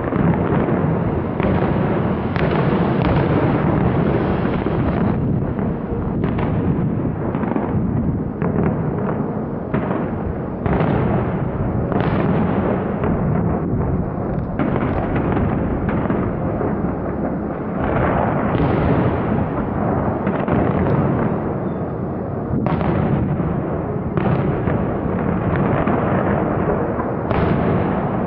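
Fireworks display: a continuous barrage of aerial shell bursts, the booms coming rapidly and overlapping, with crackling between them.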